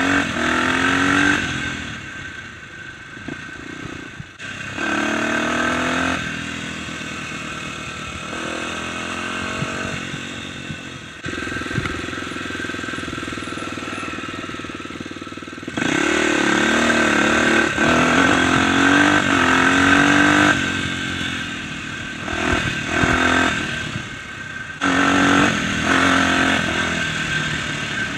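Dirt bike engine being ridden hard, revving up and easing off again and again as the rider works the throttle, with a few sharp knocks along the way.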